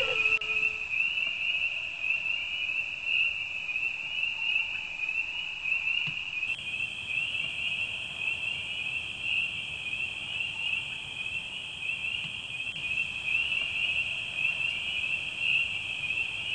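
Steady night chorus of crickets chirring, a continuous high pulsing trill. A drawn-out howl trails off in the first second.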